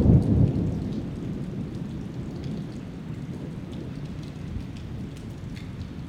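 A roll of thunder fading away over the first second or so, then steady rain with scattered drops.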